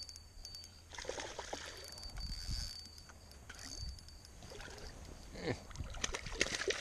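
Wind rumbling on the microphone as a hooked fish is played in, then a few short splashes near the end as the fish thrashes at the surface by the bank.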